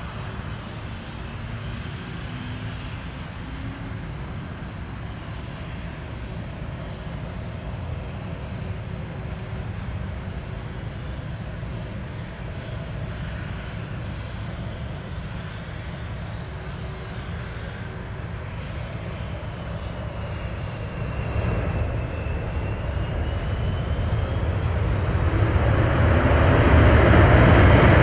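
Boeing 747 jet engines: a steady low rumble that grows louder through the last third, with a high whine that slides down and back up, building to a loud roar near the end.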